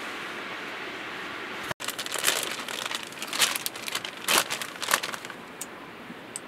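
Irregular crinkling and rustling, like something being handled, starting abruptly about two seconds in after a steady hiss. It thins out to a few faint ticks near the end.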